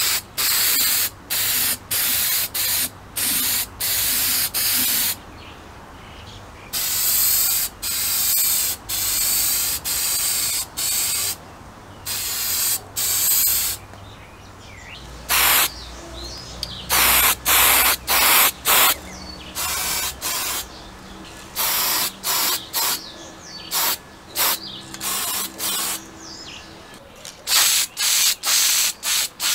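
Aerosol spray paint can hissing in repeated short bursts, with a few longer sprays of one to two seconds, as engine parts are painted.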